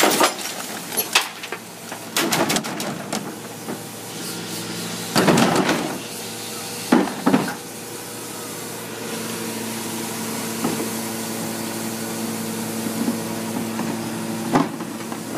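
Rear-loading garbage truck with a cart tipper: knocks and clatters as bins are tipped, a rush of garbage falling into the hopper about five seconds in, and two sharp knocks a little later. From about nine seconds the truck's machinery hums steadily, with one more knock near the end.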